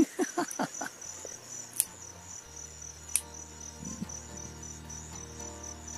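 Crickets chirping in a fast, steady, pulsing trill, with two sharp clicks along the way and soft background music coming in after about a second.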